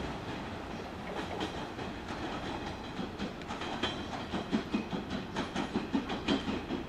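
Hanshin 7861-series 'Akado' electric train running away along the track, its wheels clicking over rail joints and points. The clicks grow sharper and more frequent from about three seconds in, at roughly three a second, over a steady rumble.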